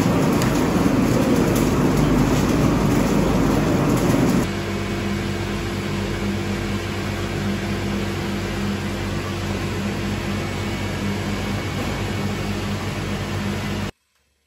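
Olive oil mill machinery running with a loud, noisy clatter. After a cut about four seconds in, a steadier machine hum with a low tone from the oil separator centrifuges takes over. Near the end the sound cuts off suddenly.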